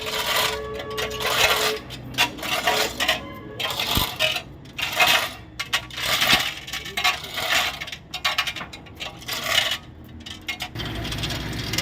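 Metal chain of a hand chain hoist clinking and rattling in repeated short bursts as an engine is lowered onto a chassis. The bursts stop near the end, and a low rumble comes in.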